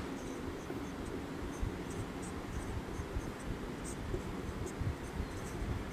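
Marker pen writing on a whiteboard: a run of short, faint strokes at an uneven pace, over a low steady room hum.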